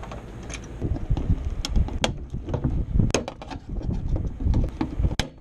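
Hands handling a car window regulator's metal mounting panel and its plastic wiring connector and clips: an irregular string of sharp clicks and knocks over a low rumble.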